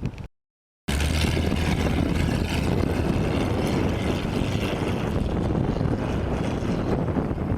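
Off-road vehicle engine running steadily under wind buffeting the microphone, after a half-second dropout to silence near the start.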